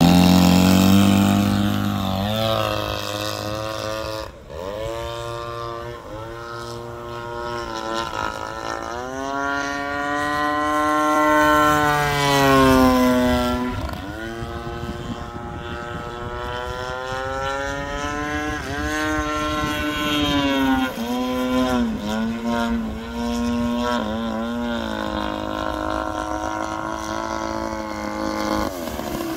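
GP76 engine of a giant-scale RC Laser Z200 aerobatic plane, swinging a 24x9 Falcon propeller. It runs loudest in the first couple of seconds, then its pitch climbs and drops again and again through the flight with throttle changes and as the plane passes by.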